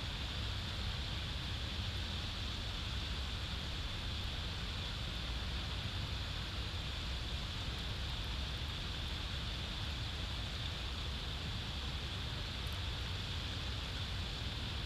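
Steady outdoor noise on a nest-camera microphone: a low rumble with an even hiss over it, typical of wind on the mic, with no calls or distinct sounds.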